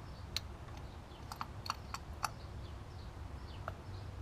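A series of light, sharp clicks from new spark plugs and small tools being handled, most of them bunched in the middle. Faint bird chirps sound in the background.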